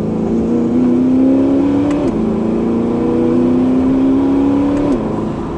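Twin-turbo C8 Corvette's built LT2 V8 accelerating under load, heard from inside the cabin: the engine note climbs steadily, falls sharply at an upshift of the dual-clutch gearbox about two seconds in, then climbs again to a second upshift near the end.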